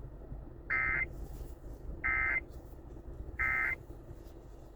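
Three short bursts of EAS (SAME) digital data tones about a second and a third apart: the end-of-message code that closes an Emergency Alert System warning broadcast.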